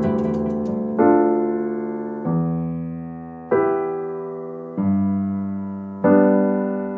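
Slow, calm keyboard music: a sustained chord struck about every second and a quarter, each one fading away before the next.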